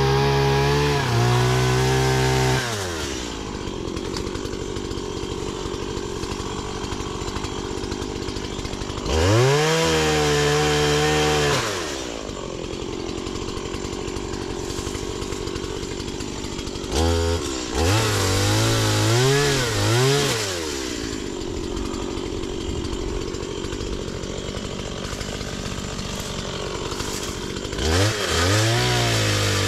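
Two-stroke chainsaw revved hard in bursts of a couple of seconds, with quick blips around the middle, dropping back to a rattling idle in between, as it cuts brush.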